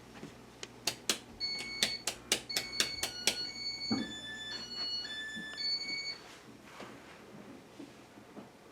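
A quick series of sharp clicks followed by a run of short electronic beeps at a few different pitches, stepping up and down like a short signal tune, ending about six seconds in.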